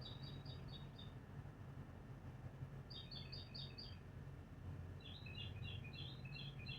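A small bird singing faint phrases of rapid high chirps: there are three, each about a second long, a second or two apart. A low steady hum runs beneath.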